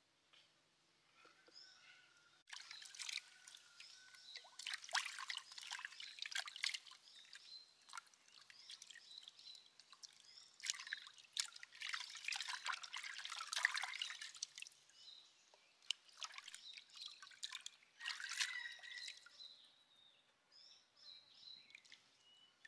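Hands swishing and rubbing skinned frogs in a coconut-shell bowl of water to wash them: irregular bursts of splashing and dripping, starting about two seconds in and dying away near the end.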